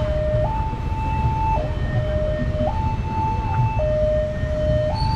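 Railway level-crossing warning siren sounding its two-tone alarm, switching between a lower and a higher tone about once a second, over a steady low rumble.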